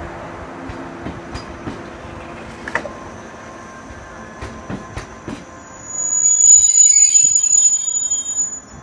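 Kumoya 443 electrical test train rolling slowly, with a low steady hum and scattered clicks of its wheels over the rail joints. About six seconds in, a loud, high-pitched brake squeal sets in and holds for nearly three seconds as the train comes to a stop.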